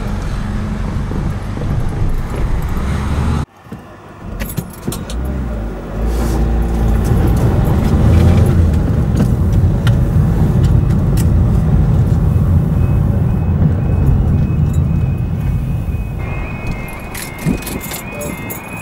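Car engine and road rumble heard from inside a moving car. In the last few seconds a level crossing's warbling two-tone warning alarm sounds.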